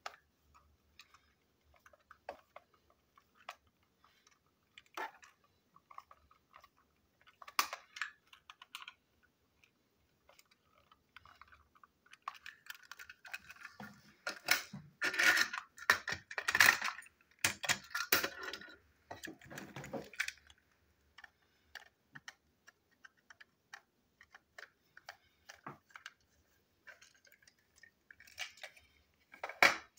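Small plastic toy train parts clicking and rattling as they are handled and pulled apart: scattered sharp clicks, with a busier, louder stretch of clattering about halfway through and one sharp click near the end.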